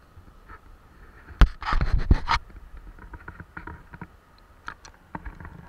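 Camera handling noise: a cluster of loud knocks and scrapes about a second and a half in, lasting about a second, then scattered light taps.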